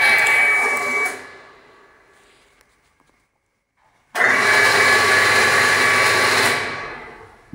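Electric radiator cooling fan of an Opel Omega 2.5 V6 whirring with a steady whine, then switching off and spinning down to silence. About four seconds in it cuts in again abruptly, runs for about two seconds and spins down once more: the fan being switched on and off.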